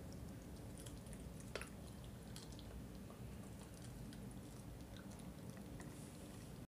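Puppy gnawing on a chicken drumstick: faint wet chewing with scattered small clicks and one sharper crack about a second and a half in.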